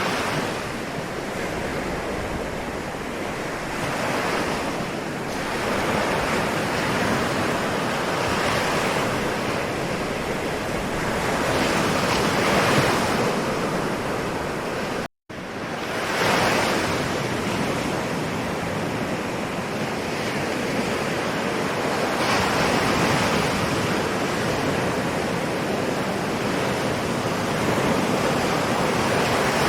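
Ocean waves: continuous surf that swells and eases every few seconds as the waves come in. The sound drops out completely for a split second a little past halfway.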